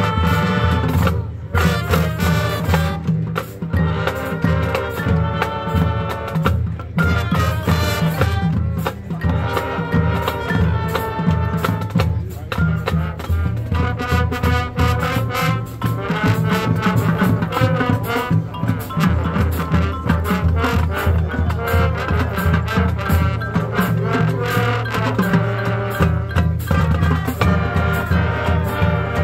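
Marching band playing a field show: brass chords over steady drums and low held bass notes, without a break.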